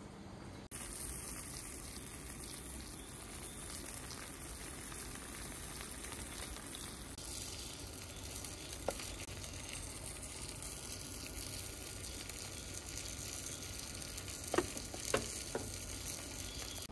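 A single-serving rice pot on its tabletop burner sizzling and crackling, the rice at the bottom crisping into scorched okoge. Near the end come a few light knocks as the wooden lid is handled and lifted off.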